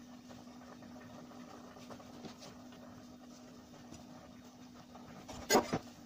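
Kitchen handling noise: a steady low hum with a few faint clicks, then two sharp knocks close to the microphone, a fraction of a second apart, about five and a half seconds in.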